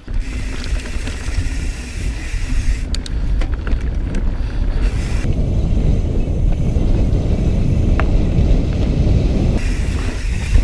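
Mountain bike rolling fast down a dirt trail: a steady low rumble of wind on the microphone and tyres on dirt, with scattered clicks and rattles from the bike.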